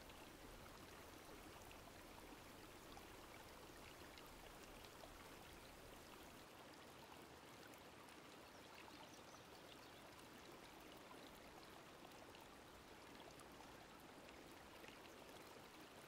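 Near silence: a faint, even hiss with a few tiny ticks.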